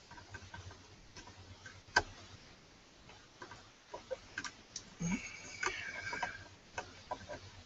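Small clicks and ticks of screws being fitted and tightened into the back of a mini PC's metal case, with one sharp click about two seconds in. A brief high squeak comes between five and six seconds in.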